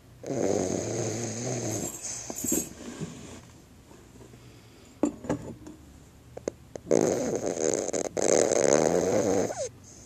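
Cavalier King Charles Spaniel snoring in sleep: two long snores, each a couple of seconds, about seven seconds apart, with a few short clicks in between.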